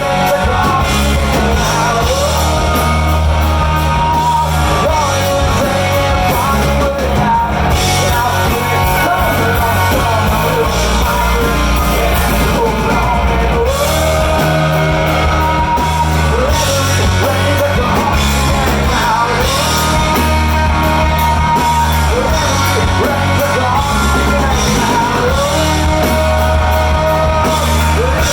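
Rock band playing live: electric guitars, bass and drums at full volume, with a singer's lead vocal over them.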